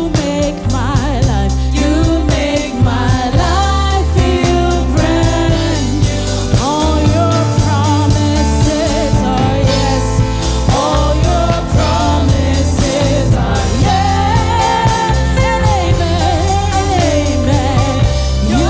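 Gospel worship music: a singer's voice over a band with bass and a steady drum beat.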